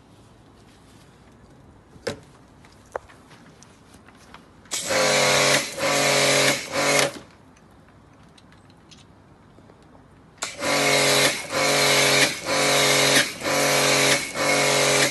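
Pressure washer motor and pump running while spraying through a snow foam lance. It runs for about two and a half seconds, cuts out for about three seconds, then starts again and keeps running, surging in pulses a little under a second apart.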